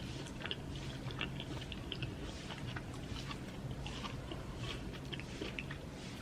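Close-up mouth sounds of someone chewing food, with many small scattered clicks and crackles, over a faint steady low hum.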